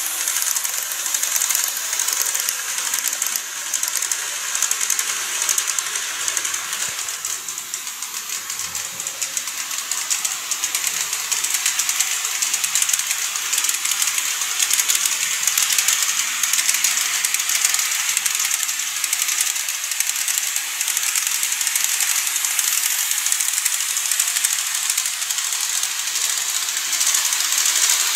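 KATO N-gauge E233 series model train running along its track: a steady, high-pitched rattling hiss of the small wheels and motor. It dips slightly about seven to ten seconds in and then comes back up.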